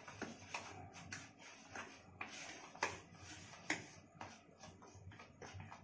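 Metal spoon stirring thick semolina and curd batter in a plastic bowl: quiet, irregular scrapes and clicks of the spoon against the bowl, a few a second, with two louder clicks around the middle.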